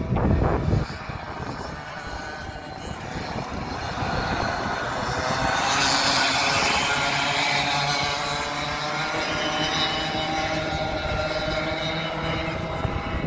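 Racing kart engines buzzing around a dirt track. They grow louder and are loudest about five to eight seconds in as a pack of karts passes close, then ease off as they move away. A brief gust of wind hits the microphone right at the start.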